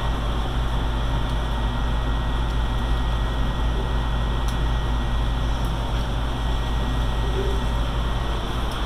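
Steady mechanical hum and rush of air from fans or air-handling equipment, unchanging in level, with a deep low drone under it.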